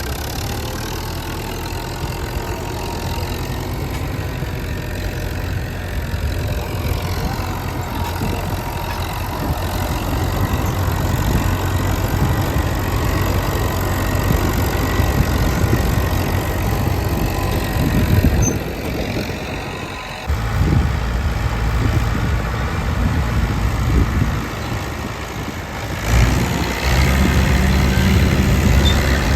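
Fiat 640 tractor's diesel engine running steadily, slowly getting louder, with the sound changing abruptly about two-thirds of the way through and again near the end.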